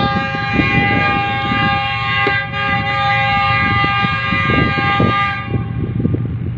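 Goods train's locomotive horn sounding one long, steady blast that cuts off about five seconds in, over a low rumbling noise.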